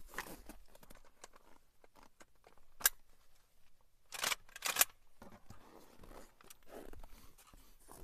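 Close handling noises at an open car door: a single sharp click about three seconds in, then a short cluster of rough crunching and scraping sounds about a second later, with faint rustles and clicks around them.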